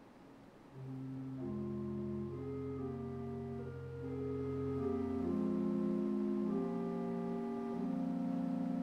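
Organ playing slow, held chords that come in about a second in and grow a little louder halfway through.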